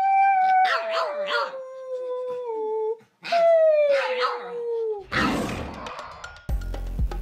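A French bulldog howling: two long howls, each sliding downward in pitch, the second fading out about five seconds in. A whoosh follows, then music starts near the end.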